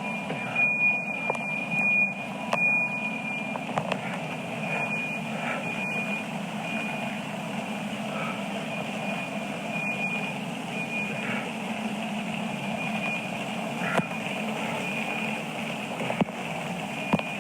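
A steady engine-like rumble with a high electronic beeping tone that repeats at uneven intervals over it, and a few sharp clicks.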